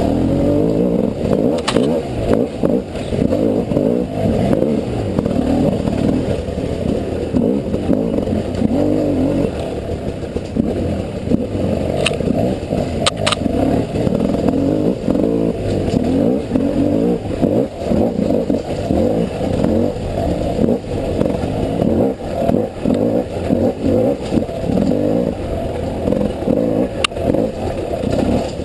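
300cc two-stroke enduro motorcycle engine revving up and down under constant throttle changes while riding off-road, with a few sharp knocks along the way.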